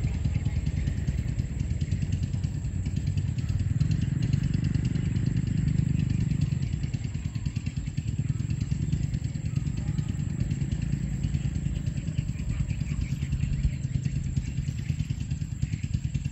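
A small engine running steadily, a fast, even chugging pulse with a low hum that swells a little about four to six seconds in.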